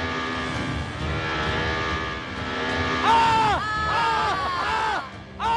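Electric motor and propeller of an indoor foam aerobatic model plane, steady at first, then from about three seconds in surging up and sagging in pitch again and again as the throttle is blipped, over background music.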